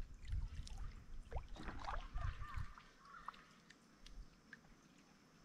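Kayak paddle strokes: the blade dipping and pulling through the river water with dripping and trickling, busiest in the first half and then dying down to a few drips.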